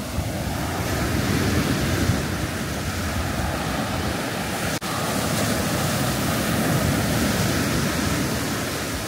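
Sea surf breaking and washing up a sandy beach, a steady rushing of waves, with wind buffeting the microphone.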